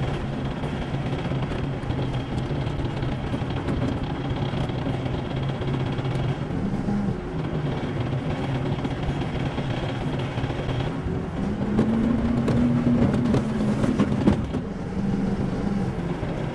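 Diesel engine of a Manitou telehandler running while it is driven, heard from inside the cab. The engine note rises and gets louder about three-quarters of the way through, then eases back. A few sharp clicks come just before it eases.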